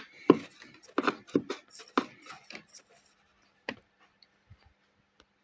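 A quick run of sharp clicks and knocks, then a single knock and a few faint ticks: hard parts being handled and set down during work on a washer-dryer's drying unit.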